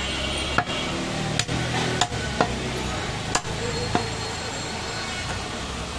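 Butcher's cleaver chopping goat meat on a wooden log chopping block: about six sharp chops at uneven intervals, over steady background noise.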